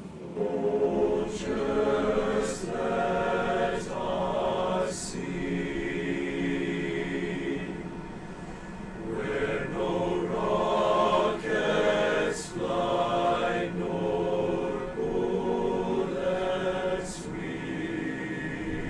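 A choir singing slowly, voices holding long notes, the 's' sounds of the words audible.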